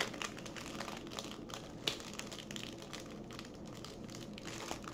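A small plastic bag of diamond-painting drills crinkling and rustling as it is handled and turned over in the fingers, with scattered light clicks.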